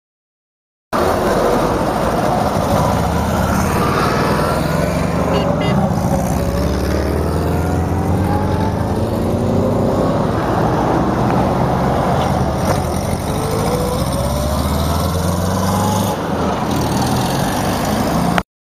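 Small rear-engined car's air-cooled V4, a ZAZ-965 Zaporozhets, running as the car drives off. The engine note rises several times as it accelerates through the gears.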